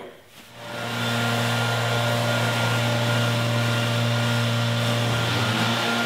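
Gas-powered leaf blower running steadily: an even engine hum under a wide rush of air. It fades in over about the first second, then holds.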